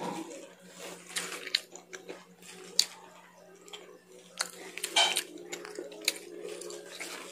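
Close-up crunching and chewing of raw leafy greens: crisp, irregular bites and chewing, with one sharp crunch about three seconds in.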